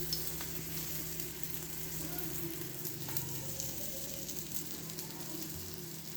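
Moong dal tikkis sizzling as they shallow-fry in a little oil on a hot tawa, with faint scattered crackles over a steady low hum.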